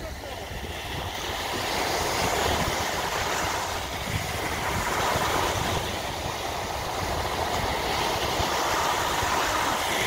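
Surf on a sandy beach: small waves breaking and washing up the shore in a continuous rush that swells about a second in.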